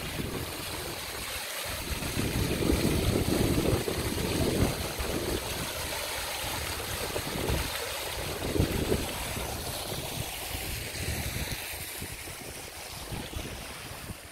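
Fountain water splashing steadily into its pool, with wind buffeting the microphone in irregular low gusts.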